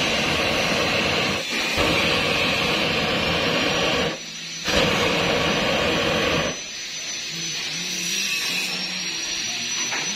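Gas wok burner on a stainless double wok range burning with a steady, loud rushing noise. It drops out briefly about four seconds in, comes back, and stops about six and a half seconds in, leaving a quieter background with a faint hum.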